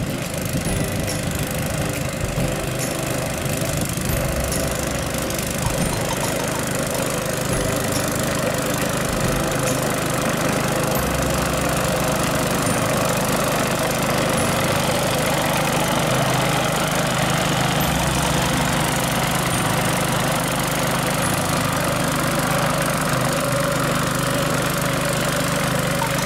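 Walk-behind sickle-bar grass cutter's 7 HP petrol engine running steadily under load while mowing tall grass.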